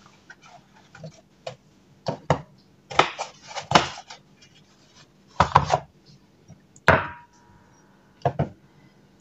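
A cardboard egg carton being handled and eggs set down on a wooden cutting board: scattered soft knocks and clatters. One knock about seven seconds in leaves a short ringing tone.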